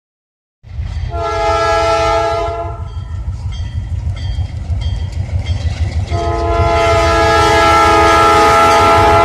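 Diesel locomotive approaching a grade crossing: its engine rumbles low while its air horn sounds one long blast about a second in, then a second long blast from about six seconds in, still sounding at the end. This is the crossing warning signal.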